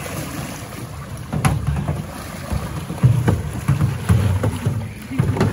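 Canoe paddles splashing and river water rushing as two canoes are paddled hard through a fast, shallow riffle. Wind buffets the microphone unevenly, and a few sharp knocks come about a second and a half in and near the end.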